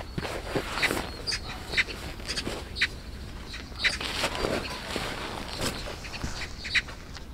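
Magpies calling around the campsite: short calls repeated many times at irregular intervals, several birds overlapping.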